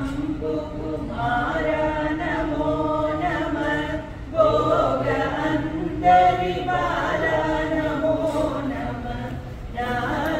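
A group of voices chanting a Hindu devotional chant in unison, one repeated phrase after another, with brief breaks about four seconds in and near the end.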